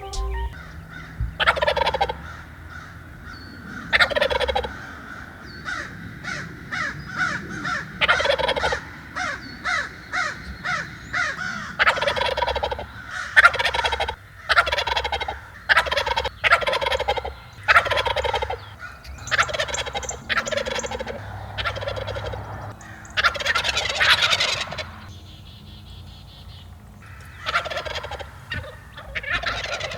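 Wild turkey gobblers gobbling over and over, a dozen or more rattling gobbles with some overlapping, from several birds strutting and displaying.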